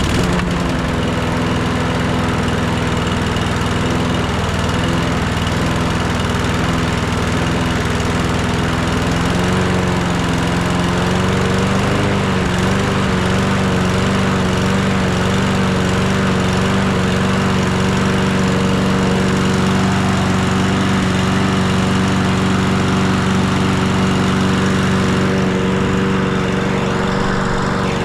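Briggs & Stratton Quantum engine on a Toro Recycler 22-inch push mower running steadily at speed just after starting, its pitch wavering briefly about ten seconds in. It is being run to warm up while it burns off its smoke.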